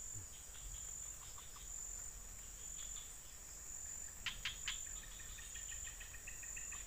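Steady high-pitched drone of insects, with a few short sharp clicks about four seconds in and a quick run of repeated chirps near the end.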